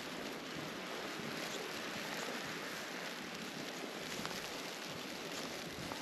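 Steady rushing hiss of wind and blowing snow in a mountain snowstorm, with a few faint crunches of footsteps in snow.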